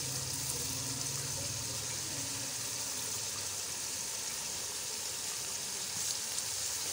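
Steady hiss of a pot of cooked mutton and ghee sizzling on the stove under a heap of freshly added shredded cabbage.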